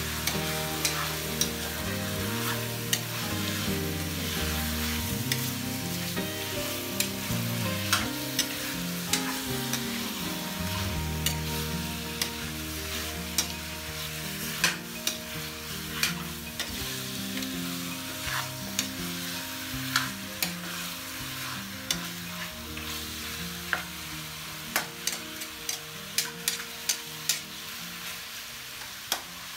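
Chicken pieces sizzling in hot oil in a metal wok while a metal spatula stirs and turns them, clinking and scraping against the pan many times. Soft background music plays underneath.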